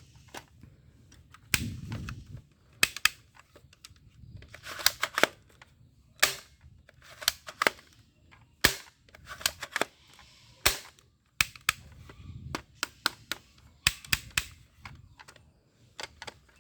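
Toy airsoft pistol's spring action snapping and clacking: a dozen or so sharp cracks at irregular intervals, some in quick clusters of two or three.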